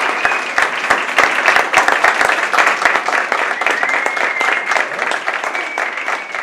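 Theatre audience applauding, dense and steady, with a few brief high held tones over the clapping. The applause eases slightly toward the end.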